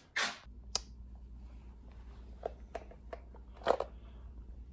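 Handling noise: a few short rustles and clicks, the loudest near the end, over a low steady hum.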